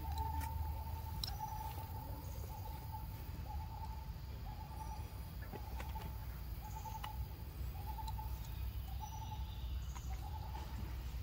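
Outdoor forest ambience: a steady low rumble with a mid-pitched hooting call repeated over and over in short pulses, and a few faint clicks.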